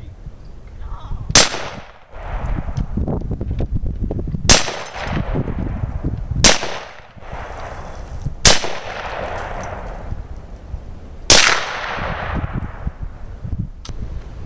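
Five gunshots a few seconds apart, each sharp crack followed by a long echoing decay.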